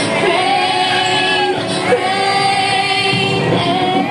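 Loud pop music with a woman singing long, sliding notes over the backing track.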